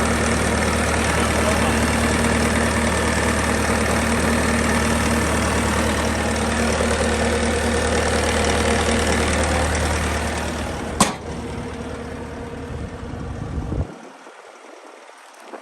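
Bobcat T650 tracked skid steer's diesel engine idling steadily. About ten seconds in it gets quieter, a single sharp click comes about a second later, and the engine sound cuts off suddenly near the end.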